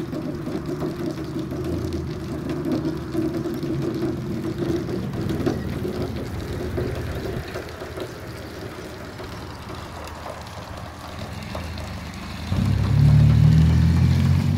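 Steady low mechanical hum, like a running engine or motor, that steps up louder and deeper about twelve seconds in.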